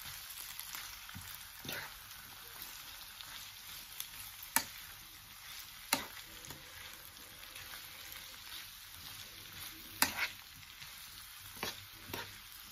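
Chopped bitter melon sautéing in oil in a non-stick frying pan: a steady sizzling hiss while it is stirred, with sharp knocks of the spatula against the pan every few seconds, the loudest about four and ten seconds in.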